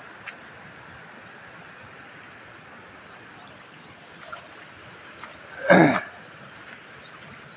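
Steady outdoor background hiss with faint, scattered bird chirps and a few light clicks, and one short, loud throaty sound with a falling pitch about six seconds in.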